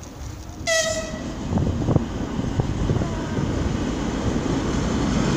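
A Russian Railways locomotive gives one short horn toot about a second in. Then the arriving train's low rumble and wheel knocks grow steadily louder as it pulls in alongside the platform.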